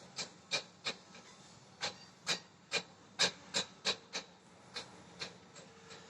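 Budgie pecking with its beak: a string of irregular sharp clicks and taps, roughly two a second.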